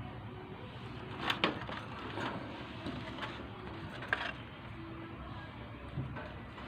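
Budgerigars giving a few short, sharp chirps at irregular intervals over a steady background hum.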